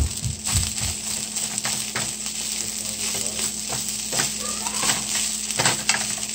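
Fried rice with bacon sizzling in a ceramic-coated frying pan while a wooden spatula stirs it, with repeated scrapes and taps of the spatula against the pan.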